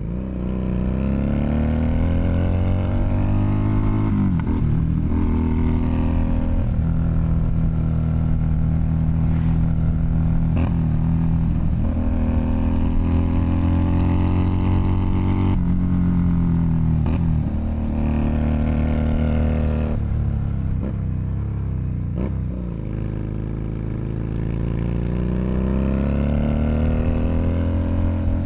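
Keeway SCR 250V motorcycle engine through a custom shortened, chopper-style exhaust, accelerating through the gears. The revs rise, drop sharply at each shift and climb again several times, with a lower stretch near the end before another pull.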